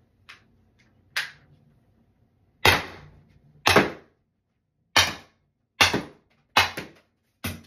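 SALT Supply CO2-powered less-lethal launcher firing: one fainter pop and then six loud, sharp shots about a second apart, emptying the magazine.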